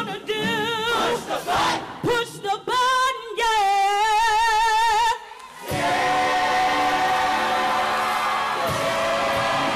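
Show choir singing the last phrases of an upbeat number, ending on a long held note with vibrato. About six seconds in, the audience breaks into applause and cheering.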